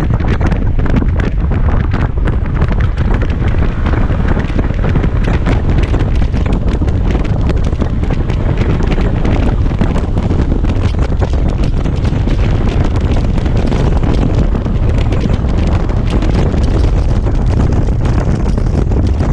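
Heavy, steady wind rush on the microphone of a Kymco Xciting 250i maxi-scooter being ridden at speed, with the scooter running underneath.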